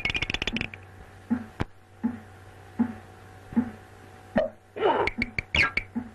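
Sound effects from an early 1930s cartoon soundtrack: a fast rattle that stops under a second in, then soft low thumps about every three quarters of a second, with a few quick sliding pitched squeaks near the end.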